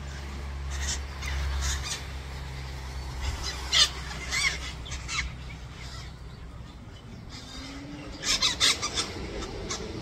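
Parrots calling in the trees: short calls in a run about four seconds in, and a tighter cluster just after eight seconds. A low steady rumble lies under the first two seconds.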